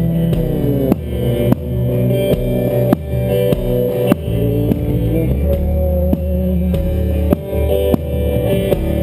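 Live rock band playing an instrumental passage: electric guitar with sustained, bending notes over bass and a drum kit keeping a steady beat.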